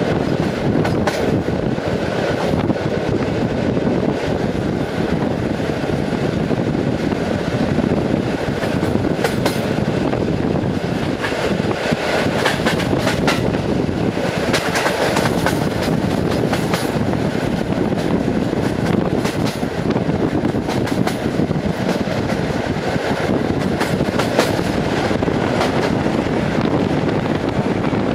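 Passenger train running at speed, heard from an open carriage window: a steady rumble and rush of air, with the irregular clickety-clack of wheels over rail joints. Near the end, an oncoming freight train of tank wagons is passing on the adjacent track.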